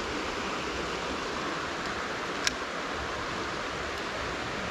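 Shallow, rocky creek water running steadily over stones, with one brief light click about two and a half seconds in.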